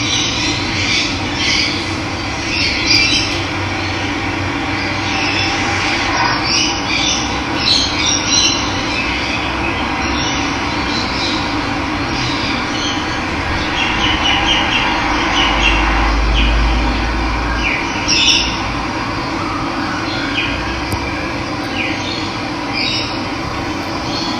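Running water rushing steadily, with birds chirping and calling in short bursts over it.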